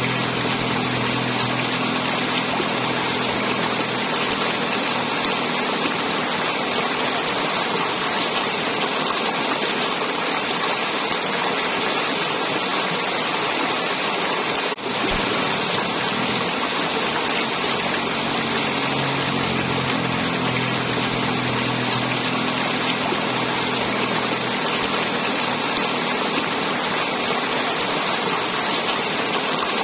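River water flowing and gurgling in a steady rush. A low hum sits under it for the first half and returns later, and the sound dips very briefly about halfway through.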